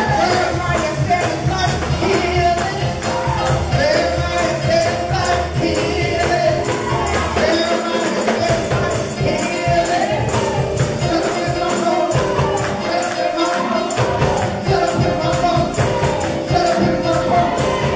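Live gospel praise music: a tambourine shaken in a fast, steady beat under voices singing together.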